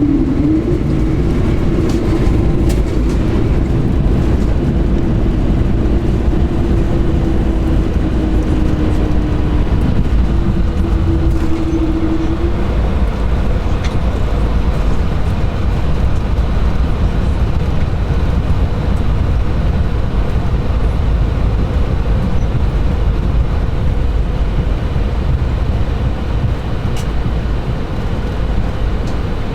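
Airbus A220-300 jet cabin noise: a loud, steady low rumble of engines and airflow, with a thin humming tone that fades out about twelve seconds in.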